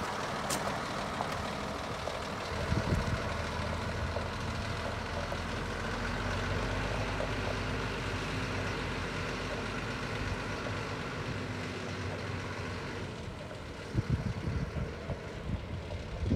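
Diesel engine of a 1993 GMC TopKick truck running steadily at low revs as the truck backs slowly away. Gusts of wind buffet the microphone from about two seconds before the end.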